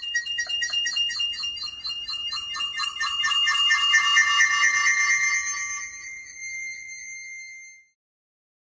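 Horror sound effect: several high, shrill tones layered together, pulsing rapidly, growing louder toward the middle, then fading out and stopping shortly before the end.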